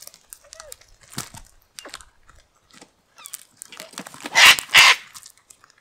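Sulphur-crested cockatoos cracking seed with scattered crunches and clicks, then two very loud, harsh screeches in quick succession about four seconds in.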